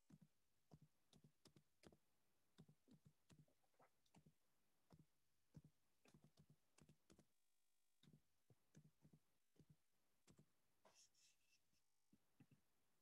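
Faint computer keyboard typing: soft, irregular clicks and taps a few a second over near silence, cut out to dead silence briefly twice, once about seven seconds in and once near the end.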